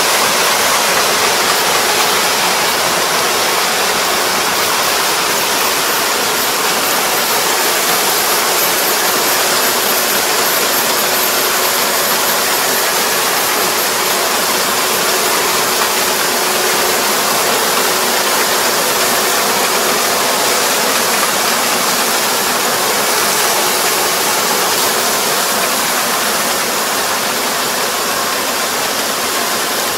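Rice combine harvester running steadily while harvesting: a loud, even mechanical rush with a faint steady hum, unchanging throughout.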